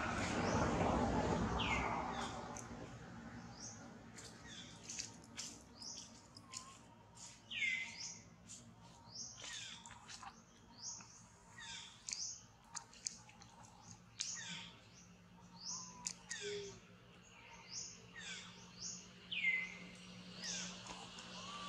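Wild birds chirping: many short, high chirps scattered throughout, with a few calls that slide down in pitch. A rush of noise fills the first couple of seconds.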